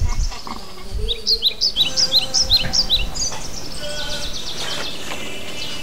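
Small birds chirping: a run of short, quick notes at two alternating pitches from about a second in, then a fast trill.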